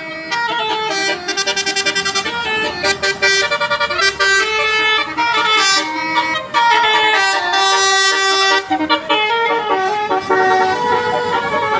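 Indonesian tourist bus 'telolet' horn: a set of multi-tone air horns playing a melody, stepping between notes in quick runs of short repeated toots and longer held notes.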